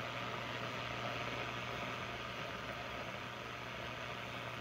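PYE 39HC shortwave receiver hissing with static from its speaker as the dial is swept across a shortwave band with no station coming in, over a steady low hum.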